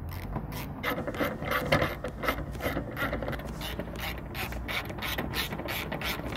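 Socket ratchet clicking, about four clicks a second, as the headlight mounting bolts are wound back in through a long extension.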